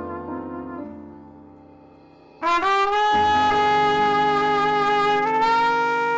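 A solo horn playing a slow praise melody in long held notes. A phrase dies away, then about two and a half seconds in a loud new note comes in and is held, stepping up in pitch about five seconds in.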